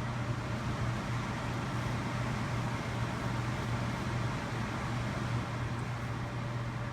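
Honeywell CHS122AE evaporative air cooler running, a steady low hum over an even rush of air from its fan. The owner takes this loud hum for a fault, which he blames on the oscillation function and the water pump.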